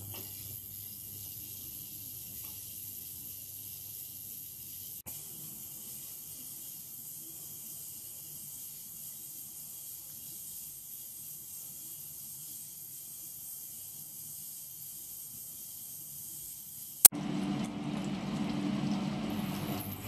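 Ultrasonic cleaning tank running with water in it: a steady high hiss with a faint rattle. About seventeen seconds in there is a single sharp click, and a louder low hum follows.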